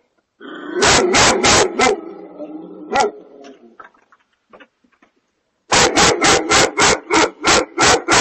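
Husky-type dog barking in alarm at a black bear close by on the porch: four quick barks about a second in, a single bark near three seconds, then a fast run of about ten barks, some four a second, from near six seconds on.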